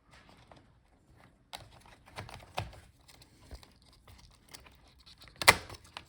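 Handling noises from a laptop's internal parts as its cooling fan is removed: scattered light clicks and rustling, with one sharp click about five and a half seconds in.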